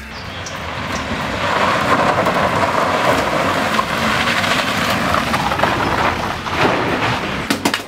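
Car driving fast along a dirt road: a steady rushing noise of tyres on loose gravel and dust that builds over the first second or two, then holds.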